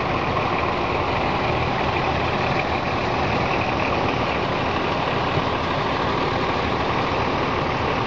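Off-road 4x4 SUV engines running steadily, one of them close by.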